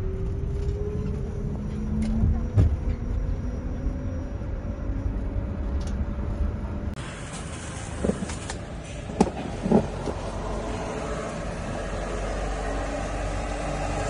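Engine and road noise inside a moving van's cabin, the engine note rising slowly as it gathers speed. Then, over a steady hum, a few sharp knocks and bumps as a hard-shell suitcase is handled.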